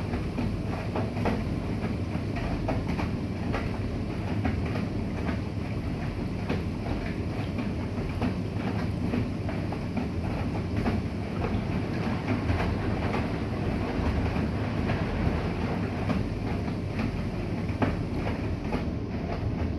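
Bosch i-Dos WGG154A10 front-loading washing machine running, its drum turning with the laundry tumbling: a steady rumble with irregular clicks and knocks throughout.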